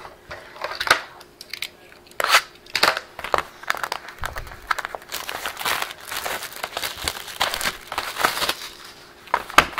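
Plastic shrink-wrap being picked at, torn and crinkled off a sealed box of trading cards: scattered sharp crackles, then a denser run of crinkling and tearing from about halfway through.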